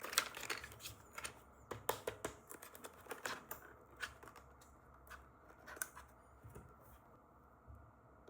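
Irregular sharp clicks and crinkles of toy packaging being handled and opened, busiest for the first few seconds and thinning out near the end.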